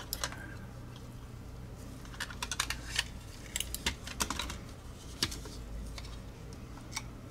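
Small, sharp, irregular clicks and taps of tweezers and plastic parts as the circuit board and white shell of a Logitech G Pro X Superlight mouse are fitted back together, coming in a few quick clusters.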